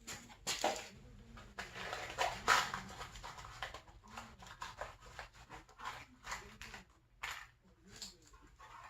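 Irregular clicks, clinks and scrapes of metal suspension parts and hardware being handled while a snowmobile spindle is fitted, with a dog faintly whining.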